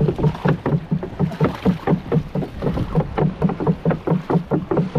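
A small engine chugging steadily at about five or six beats a second, with water splashing as a mesh bag is dipped and shaken at the side of the boat.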